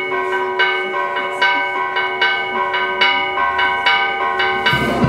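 Church bells rung rapidly, about two to three strokes a second, each stroke ringing on. Near the end band music starts up and covers them.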